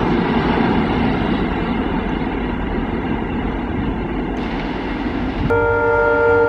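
Train running on the rails with a steady rumble, then about five and a half seconds in a locomotive horn starts sounding, a steady blast of several tones at once that becomes the loudest thing.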